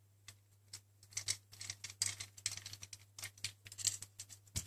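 Irregular light clicks, ticks and small scrapes of a precision screwdriver and small metal parts being worked inside an opened MacBook Pro case, over a faint steady low hum.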